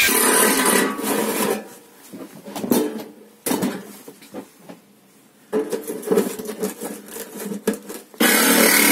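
Power tools working a stainless steel sheet-metal box: a drill running briefly at the start, then uneven handling noise, and a little over 8 seconds in a jigsaw starts up loud and steady, cutting into the stainless steel.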